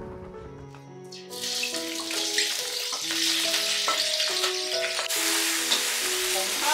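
Food sizzling in hot oil in a wok as it is stir-fried with a metal spatula, with a few light scrapes. The sizzle starts about a second in and gets louder about five seconds in, over background music.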